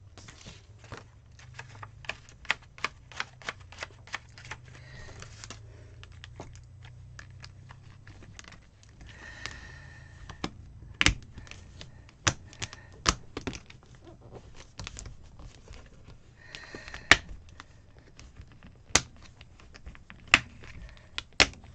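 Irregular sharp clicks and snaps of paper pages and a clear plastic sheet being worked on and off the plastic discs of a discbound planner, with short bursts of page rustling. The loudest snaps come in the second half.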